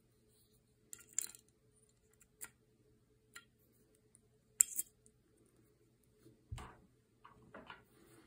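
Scattered light metallic clicks and taps from handling a Holosun EPS Carry red-dot optic mounted on its plate, the sharpest about four and a half seconds in, with a duller knock about six and a half seconds in.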